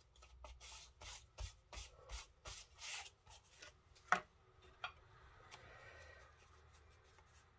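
An anti-static pouch is rubbed over cardstock in a run of short, quick strokes, done to keep embossing powder from sticking to the card. A couple of light taps follow a little after four seconds in, as the card is handled.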